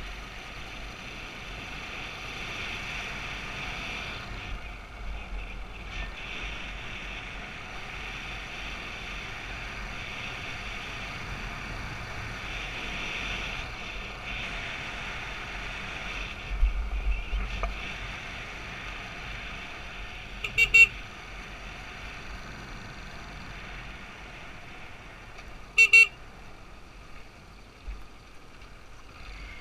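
Dirt bike engine running steadily under the rider, with wind on the microphone. A brief low thump near the middle, then two short horn toots in the second half, about five seconds apart.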